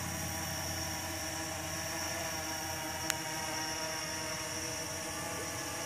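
Blade 350QX quadcopter's four brushless motors and propellers running steadily in a low hover just after takeoff: an even hum with a thin high whine over it. A single brief click about three seconds in.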